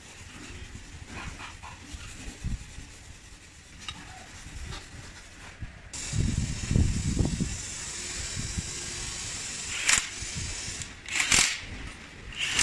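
A steady hiss with a low rumble starts about halfway through. Near the end come three short, sharp bursts from a cordless power tool run against bolts on the engine block.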